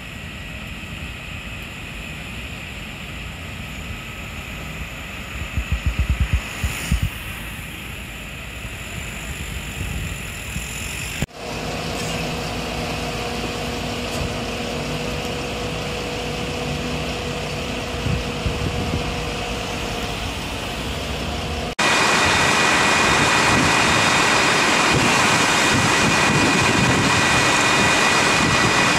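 Fire engines running steadily at the scene: their diesel engines and pumps make a continuous mechanical drone. There are a few brief low thumps about six seconds in, and after a cut near the end a much louder, higher-pitched steady drone.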